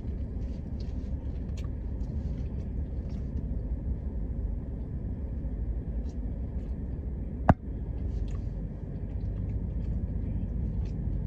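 Steady low rumble inside a car with the engine and air conditioning running, with a few faint small ticks and one sharp click about seven and a half seconds in.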